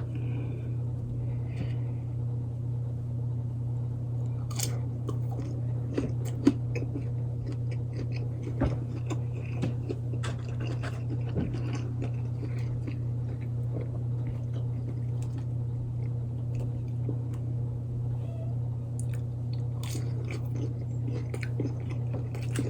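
A person chewing and biting breaded chicken nuggets dipped in ranch, close to the microphone: scattered soft crunches and mouth clicks over a steady low hum.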